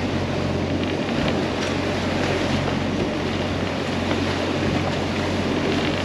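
Wind buffeting the microphone over water rushing past the stern of a sailing catamaran under way in rough seas, with a steady low hum underneath.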